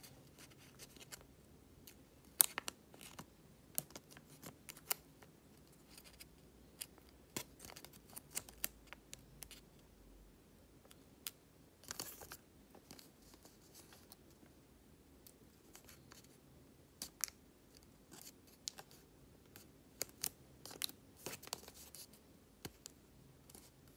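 Origami paper being folded and creased by hand: scattered crisp paper rustles and sharp little clicks as the folds are pressed, the sharpest about two and a half seconds in.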